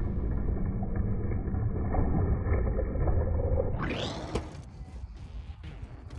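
Slow-motion audio of a skatepark during a BMX ride, slowed so far that it comes out as a deep, muffled rumble. About four seconds in, the pitch sweeps sharply upward as the playback speed ramps back to normal.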